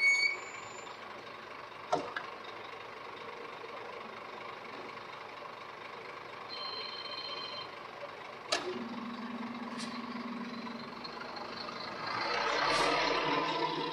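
Semi-trailer truck coupling to its trailer: a short beep at the start, a steady beep about halfway, a few sharp knocks, and a louder burst of hiss near the end.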